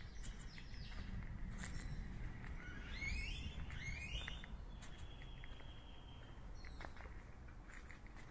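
A bird gives two quick rising calls about three seconds in, then a held high note, over a steady low rumble of road traffic. Faint footsteps sound along a park path.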